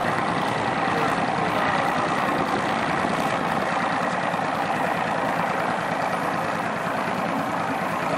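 A boat's engine running steadily, with no change in pace.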